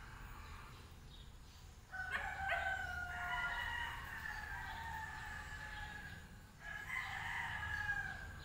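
A rooster crowing twice: a long drawn-out crow starting about two seconds in, then a shorter crow near the end.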